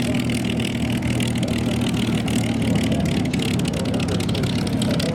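Engine running with a steady low drone that neither rises nor falls.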